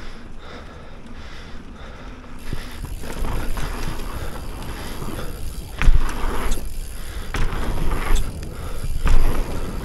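Mountain bike being ridden over dirt: tyre and rattle noise with wind on the camera microphone, swelling about two and a half seconds in, with two heavy thumps, one around the middle and one near the end.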